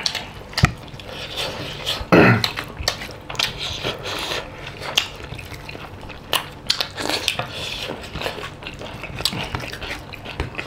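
Eating by hand off stainless steel plates: a run of small clicks and scrapes of fingers and food against the metal, with chewing, and one louder knock about two seconds in.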